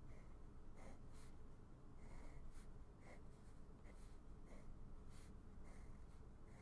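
Faint scratching of a Muji pen drawing short strokes on sketchbook paper, an irregular string of strokes about one or two a second.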